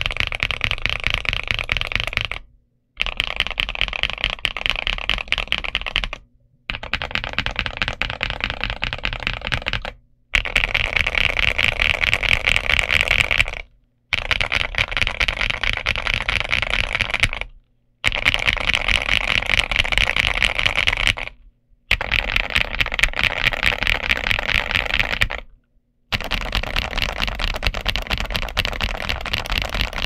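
Fast typing on a Zuoya GMK87 mechanical keyboard with MMD Holy Panda V3 tactile switches and XVX Damaged Mecha dye-sub PBT Cherry-profile keycaps. The keystrokes come in dense runs of about three to four seconds, each broken off by a short silence.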